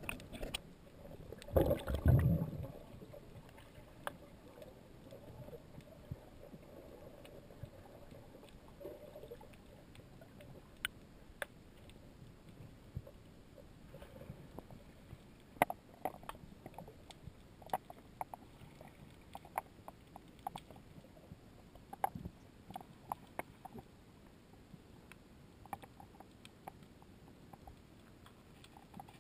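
Underwater ambience picked up through a camera's waterproof housing. A brief loud, low rush comes about two seconds in, then a faint steady hiss with scattered sharp clicks and ticks.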